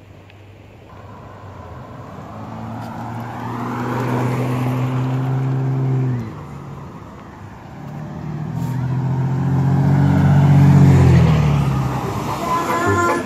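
A car engine running louder twice, its steady drone building and then cutting off suddenly about six seconds in, then swelling again and fading toward the end.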